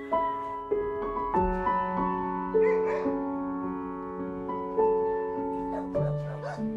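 Background piano music: slow, held chords with notes changing about once a second.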